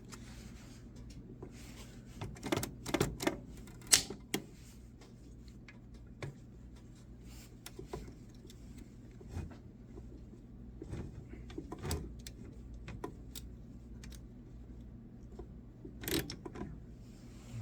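Antique Oliver typewriter being checked over by hand: scattered clicks and knocks of its keys and mechanism being tried, the sharpest about four seconds in, over a steady low hum.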